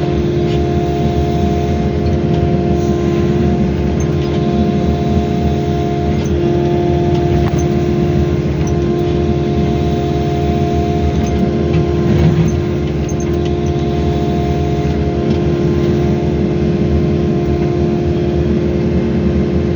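Wheeled excavator's diesel engine and hydraulics running steadily under work, a constant drone with a steady hum, while the bucket scrapes soil.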